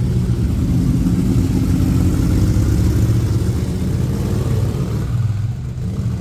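Two motorcycles riding along the street below, their engines running with a steady, deep exhaust note that eases slightly near the end.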